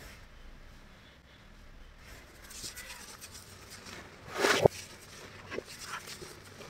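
Hands squeezing and pressing fine white powder in a bowl, making soft crunching rustles. A louder crunch comes about four seconds in and ends in a sharp click.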